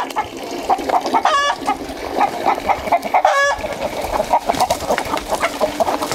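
A flock of chickens clucking steadily while they are being fed corn, with two short, sharper calls standing out, about a second in and again around three and a half seconds.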